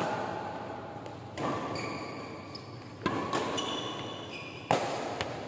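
Badminton rally in an echoing hall: several sharp racket strikes on the shuttlecock ring out, with short squeaks of shoes on the court between them.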